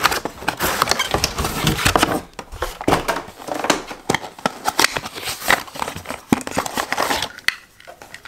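Cardboard packaging being handled and pulled about: the box's card insert and inner pieces rustling and scraping, with many small clicks and knocks, stopping about seven and a half seconds in.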